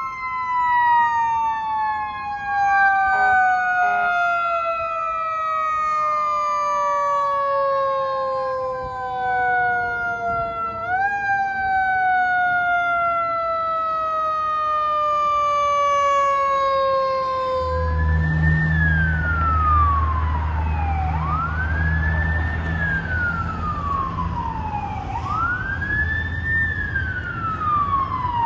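Fire engine's mechanical siren slowly winding down in pitch, pushed briefly back up about eleven seconds in. After a cut near the end, a different siren wails, rising quickly and falling slowly about every four seconds, over the low rumble of a heavy engine.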